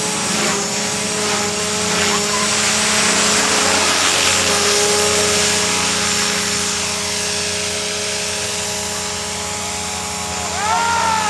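CopterX CX500 electric RC helicopter in flight: its 1600kv brushless motor and rotor blades make a steady whine, held at an even speed in stunt mode. A short call rising then falling in pitch is heard near the end.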